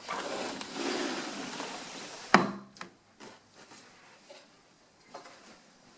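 A window air conditioner unit being set onto a wooden ledge: about two seconds of scraping and rubbing, then one heavy thud on the wood a little over two seconds in, followed by a few light knocks.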